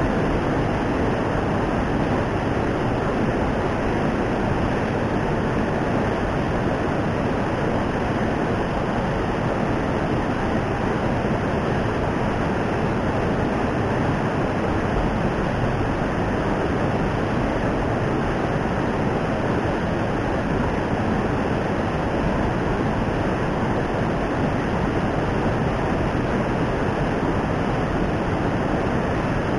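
Steady, unbroken rush of fast-flowing water.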